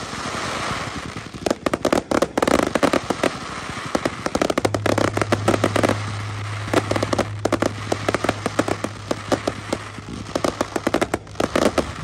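Fireworks display: a rapid, dense string of bangs and crackles from aerial shells and gold crackling bursts. A steady low hum sits underneath from about four and a half seconds in.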